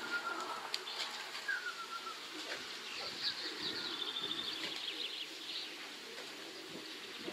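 Pigeons' wings flapping at the loft, with two short falling whistles early on and a run of high bird chirps from about three seconds in, over a low cooing murmur.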